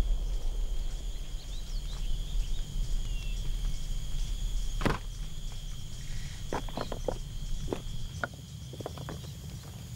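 Footsteps crackling through dry leaves and twigs on a forest floor, with one sharp snap about five seconds in and a cluster of irregular crackles later on. A steady high insect drone and a low rumble run underneath.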